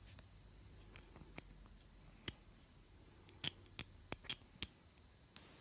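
Faint, scattered metallic clicks and ticks of small steel forceps and a wire retainer clip against an aluminium piston, as the clip is worked into the wrist pin groove. A quick run of sharper clicks comes a little past the middle.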